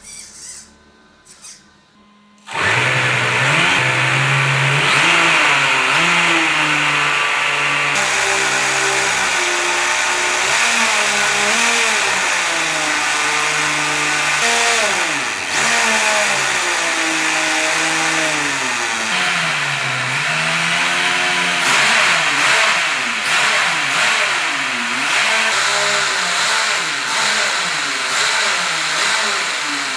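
A 3D-printed 1:8 scale electric RC Supra running with its wheels spinning on a roller stand, its drive speeding up and slowing down again and again with the throttle. It starts suddenly about two seconds in, after brief music.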